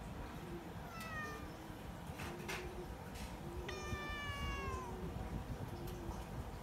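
Tabby cat meowing twice: a short meow about a second in, then a longer one about four seconds in whose pitch drops at the end.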